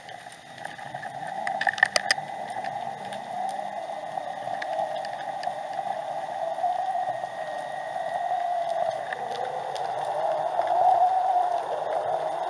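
Underwater audio from a submerged camera: a steady rushing water noise with a short cluster of sharp clicks and knocks about two seconds in.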